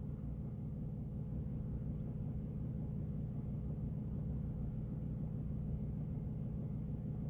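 Steady low hum of an incubator's fan motor.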